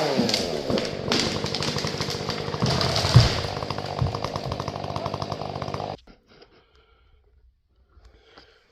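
Stihl 500i two-stroke chainsaw dropping back from full throttle and running rough and uneven at lower revs, then cutting off suddenly about six seconds in, followed by a few faint noises.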